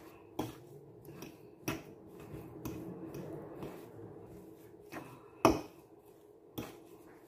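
Metal fork clinking and scraping against a bowl as it mashes and stirs a soft cheese filling, in irregular taps. The sharpest clink comes about five and a half seconds in.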